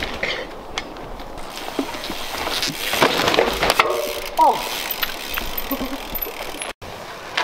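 Mountain bike rolling and rattling over a dirt and pine-needle trail, with scattered clicks and knocks from the bike. A person's voice calls out briefly about four seconds in.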